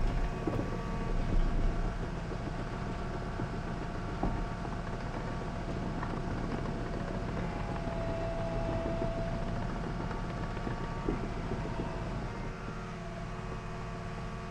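John Deere 750K crawler dozer's diesel engine running steadily, easing down a little near the end.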